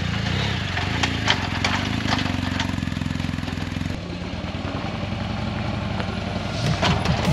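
Touring motorcycle's V-twin engine running at low revs as the bike is ridden slowly onto a loading ramp, with a few knocks mixed in. The engine gets quieter about four seconds in and louder again near the end.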